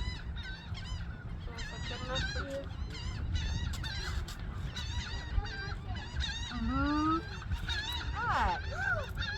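A flock of birds calling over and over with short, repeated chirping calls, and a few longer, drawn-out calls near the end, over a steady low rumble.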